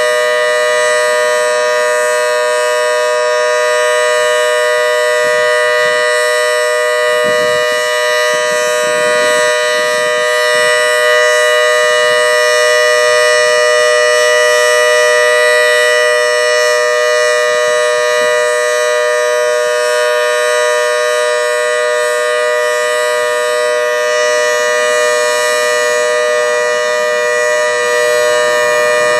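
Federal Signal Model 2T dual-tone outdoor warning siren sounding its steady alert signal: two tones of about 491 and 620 Hz held together at a constant pitch and a steady loudness.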